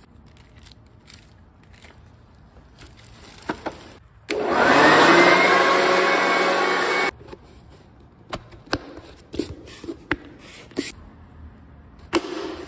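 Black+Decker BEBL7000 corded electric blower vacuum switched on about four seconds in: a loud steady rush of air and motor whine for about three seconds, then it cuts off suddenly. Before and after, clicks and knocks of the plastic housing and tubes being handled.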